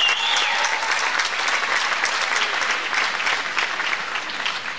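Audience clapping in a large hall, with a brief high-pitched cheer right at the start; the clapping slowly fades.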